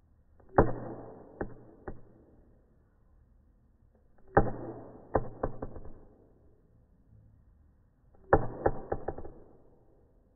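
Drumstick strokes on a drum practice pad: three short phrases about four seconds apart, each opening with a hard accent followed by a few lighter taps.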